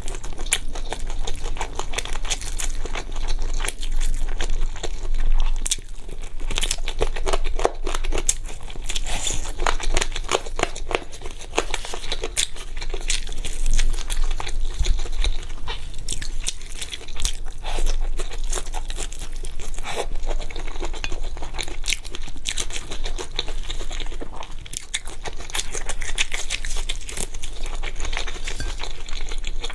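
Close-miked chewing of saucy fried skewer food: a dense, continuous run of wet crackling and crunching clicks.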